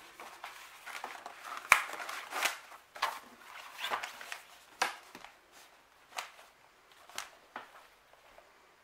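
Handling of a faux-leather traveler's notebook and its paper inserts: pages rustling as they are turned, then the cover being closed and the notebook picked up. There are irregular soft knocks and rustles, with one sharp tap about two seconds in.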